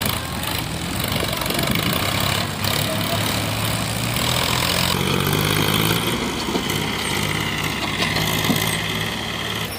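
Diesel farm tractor engines running while pulling loaded sand trolleys. The engine sound changes abruptly about two and a half and five seconds in, as one tractor gives way to another.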